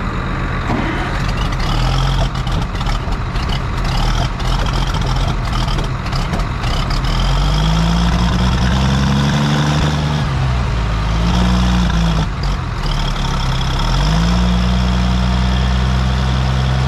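Oliver 1550 tractor engine running steadily. In the second half the revs rise and fall back a couple of times, then come up again and hold steady.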